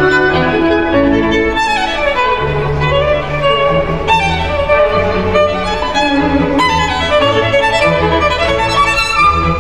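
Background music: a melody of long held instrumental notes over a lower accompaniment.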